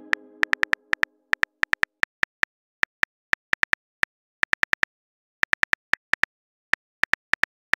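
Phone keyboard click sound effect typing out a message: many short, sharp ticks in uneven runs of several a second, with brief pauses between runs. The fading tail of a message chime rings under the first second.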